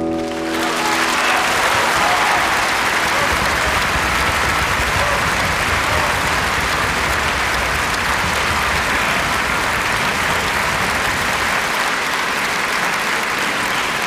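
Large audience applauding steadily. It swells in as the ensemble's final chord dies away in the first moment.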